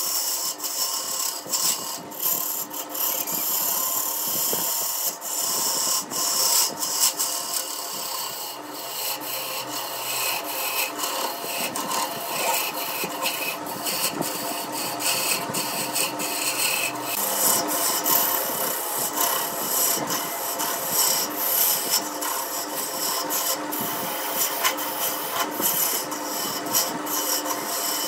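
Wood lathe running with a steady motor hum while a hand-held turning tool cuts into the spinning wooden blank, a continuous scraping hiss with frequent short ticks.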